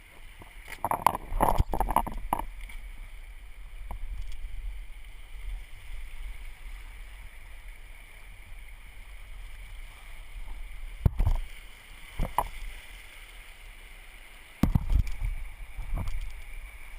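River water rushing and splashing around a raft oar, heard from a camera mounted on the oar, with a steady low rumble. A cluster of splashes and sharp knocks comes about a second in, a single knock falls past the middle, and another burst of splashing and knocks comes near the end.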